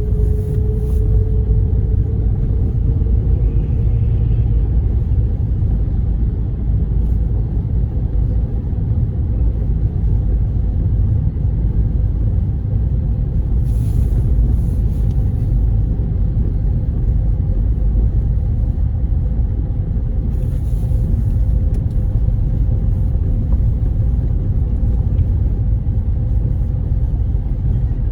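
Steady low rumble of a car driving at low speed on snowy roads, heard from inside the cabin, with a faint steady hum running under it. Two brief soft hisses come through, about halfway and two-thirds of the way in.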